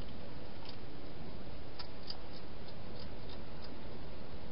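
A wild hedgehog chewing food at a bowl inside a plastic feeding box: irregular, crisp clicks, about ten of them, over a steady hiss.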